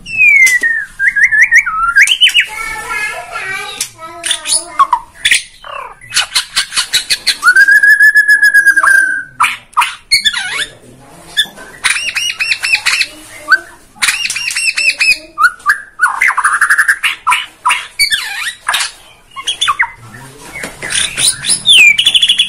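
A caged white-rumped shama (Borneo murai batu) singing loudly and without a break, pouring out its full repertoire of mimicked phrases. The song mixes clear gliding whistles, one long held whistle, rapid runs of sharp repeated notes, and trills.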